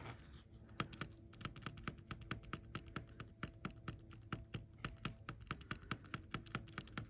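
Ballpoint pen tip scoring short lines into metal foil tape on a hard board: a quick, irregular run of light clicks, several a second. A faint steady hum lies underneath.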